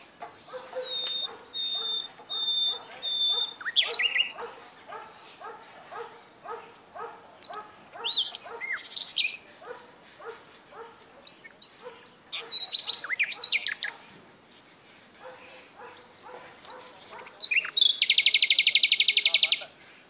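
Several wild birds calling and singing in woodland. There is a run of repeated calls about twice a second through the first half, a few short whistles and sharp chirps, and a very fast, loud trill near the end, all over a steady high-pitched hum.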